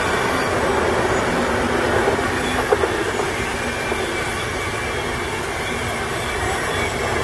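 DB Intercity train with a red electric locomotive at the rear running away round a curve: a steady rumble and rattle of wheels on the rails, with a couple of sharp clicks near the middle.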